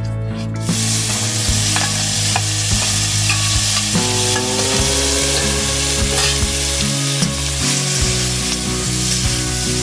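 Prawns frying in hot oil in a kadai, a loud steady sizzle that starts about a second in.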